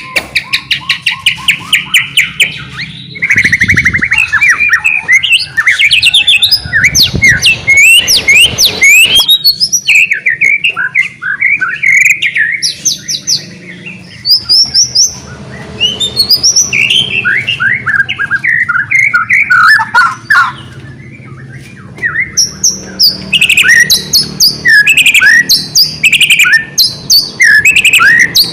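White-rumped shama (murai batu) singing vigorously in full song: a fast, varied run of whistled phrases, rapid trills and sliding notes, broken by a couple of brief pauses.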